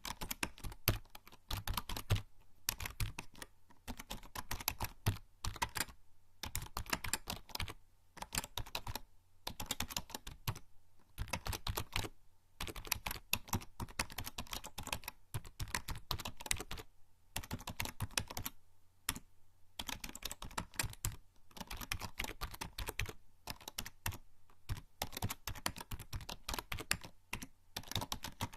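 Typing on a membrane computer keyboard: quick runs of soft key presses in bursts of a second or two, with brief pauses between them.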